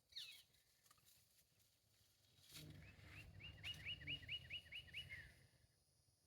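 Faint animal call, most like a bird singing in the bushes: one quick falling note, then a run of about ten short rising notes, about four a second, ending in a falling note. A low rumble sits under the run.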